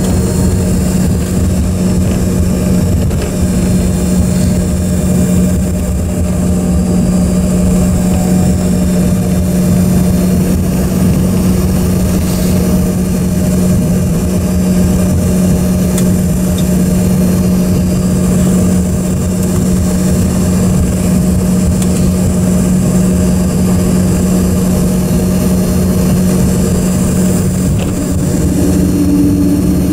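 Steady engine noise inside the cabin of an Embraer 145, its rear-mounted Rolls-Royce AE 3007 turbofans running at low power as the jet rolls out and taxis after landing, with a steady low hum throughout. A second, slightly higher hum joins near the end.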